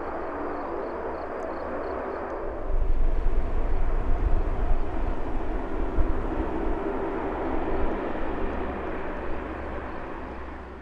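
Lockheed C-130 Hercules's four Allison T56 turboprops running as the aircraft taxis, a steady propeller drone. About three seconds in it grows louder with a deep rumble, then eases off near the end.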